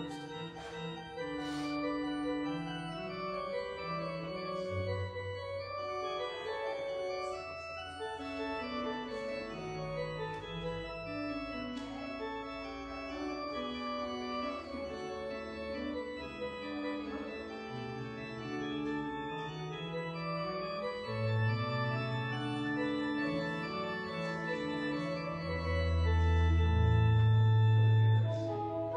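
Organ music: slow, held chords over deep bass notes, swelling louder a few seconds before the end.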